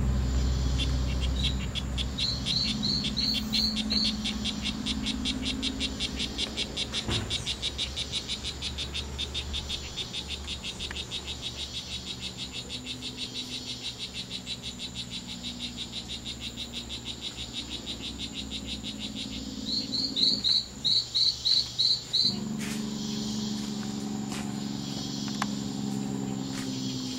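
Strawberry poison dart frog (Oophaga pumilio) calling: a long, even train of short, high, buzzy chirps, several a second, the territorial call males give when they contest ground. The train stops about twenty seconds in, then a burst of about six louder, upward-sweeping chirps follows.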